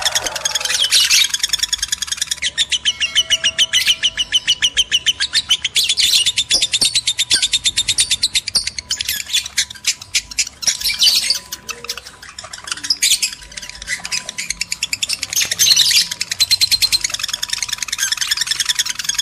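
Lovebirds in breeding condition chattering: a rapid, continuous stream of high chirps and squawks with brief lulls, the kind of lovebird call played as a lure to bring other lovebirds into breeding mood.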